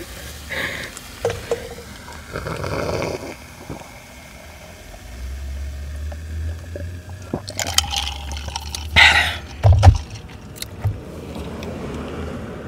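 Coca-Cola poured from a can into a glass jar, fizzing and foaming, followed by close-up mouth sounds of drinking and eating, with a few loud sharp noises about eight to ten seconds in.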